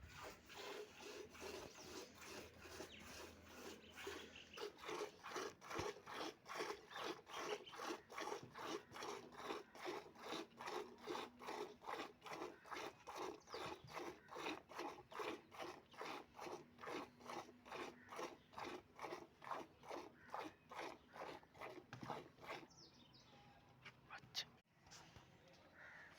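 A cow being milked by hand: rhythmic squirts of milk, about three a second, stopping near the end.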